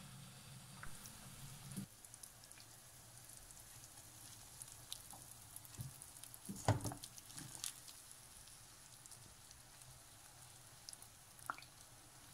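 Pot of broth with beef and vegetables bubbling on the boil, a faint hiss full of small pops, with a wooden spoon knocking against the steel pot a few times around the middle.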